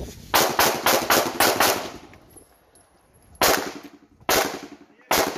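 Semi-automatic pistol firing a fast string of about six shots. After a short pause come three more shots, about a second apart.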